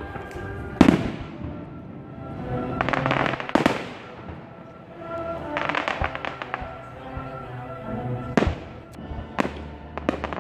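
Aerial fireworks bursting: loud bangs about a second in, near the middle and again near the end, with runs of fast crackling pops from crackle-star shells in between. Classical music plays underneath.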